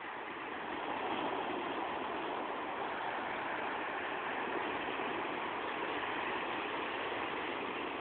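Ocean surf: waves breaking and washing up the shore as a steady rushing noise, swelling in the first second and then holding even.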